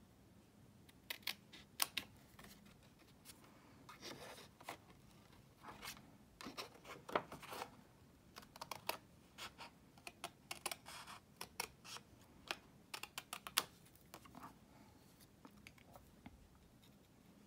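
Small craft scissors (Stampin' Up! Paper Snips) cutting thin card stock: irregular short, sharp snips and clicks, faint and close.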